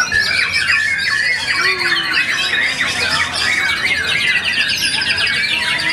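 White-rumped shama (murai batu) singing a fast, varied string of whistles and chirps, with a long rapid trill from about two and a half seconds in to about five.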